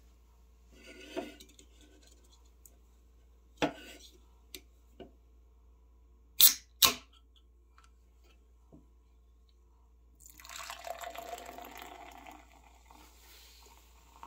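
Aluminium cola can handled and its tab cracked open with two sharp snaps about halfway through. Cola is then poured into a glass, splashing and fizzing strongly, and the fizz thins as the pour goes on.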